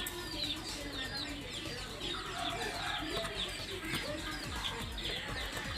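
Birds and chickens calling in the background: a rapid, continual run of short high chirps that drop in pitch, with lower clucking calls now and then.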